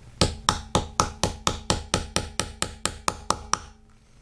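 Light, quick hammer taps on the handle of a small screwdriver held against a wheel rivet, about four a second, driving the rivet into its hole in the wheel lip; the tapping stops near the end.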